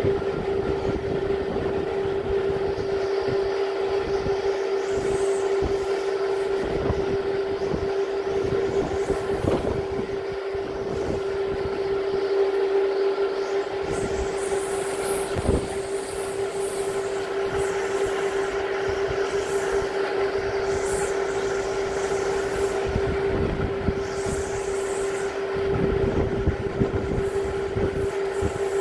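Typhoon-force wind gusting hard and buffeting the microphone in irregular low rumbles, with hissing surges and a steady pitched tone underneath.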